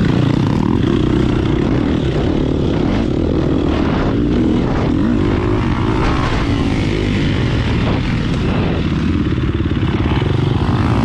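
Husqvarna dirt bike engine running hard under the rider, revving up and easing off as the bike speeds up out of a corner and slows into the next.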